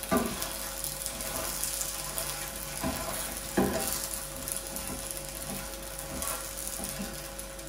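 Paratha sizzling in oil and ghee in a hot nonstick frying pan while a spatula presses it down and turns it, with a few soft knocks and scrapes of the spatula against the pan.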